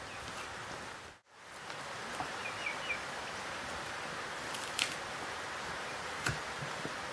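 Steady hissing background noise, with a few soft high chirps from the chickens a couple of seconds in and two or three sharp clicks later on.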